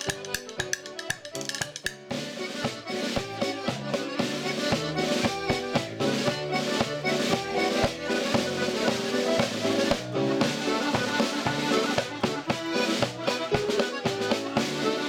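Irish traditional dance tune played together on several button accordions and a tenor banjo, with a steady, driving beat of sharp note attacks. The sound grows fuller and louder about two seconds in.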